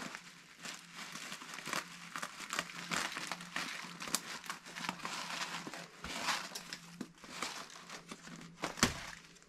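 Plastic bag of CaribSea Arag-Alive live sand crinkling and rustling as it is handled and its corner is cut off with scissors, with one louder click near the end.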